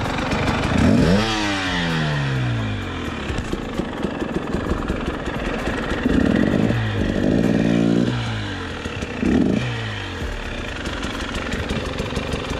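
KTM 300 XC's two-stroke single-cylinder engine running on the trail and revved in three blips. The first, about a second in, rises sharply and falls away. A longer one is held for a couple of seconds past the middle, and a short one comes near the end. The engine settles back toward idle in between.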